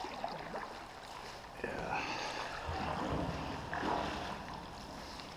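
Canoe paddle strokes through the water inside a concrete culvert, with splashing and dripping, louder from about one and a half seconds in.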